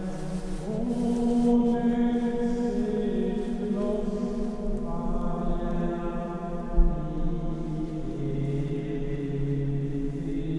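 Choir-like chanting: long, held sung notes with rich overtones, moving to a new pitch every few seconds. A single low thump comes through about two-thirds of the way in.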